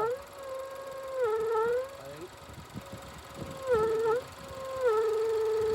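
Range Rover engine making a steady whining tone, held at one pitch and dipping briefly three times. It is the noise of a vacuum leak, which the mechanic traces to a swollen hose, the wrong type for the job, between the PCV valve and the intake manifold that vibrates inside.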